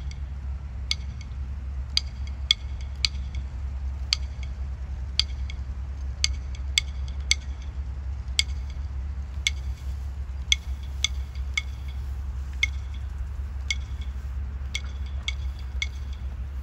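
Honor guard drummer tapping a marching cadence on a snare drum: sharp, ringing clicks about once a second, broken by quick runs of two or three taps. A steady low rumble lies underneath.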